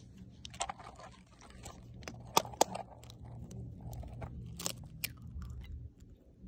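Raw egg being cracked: a pair of sharp shell cracks about two and a half seconds in and another pair about five seconds in as the shell breaks open, then the egg drops into a sun-heated frying pan without sizzling, a sign the pan is not hot enough to fry.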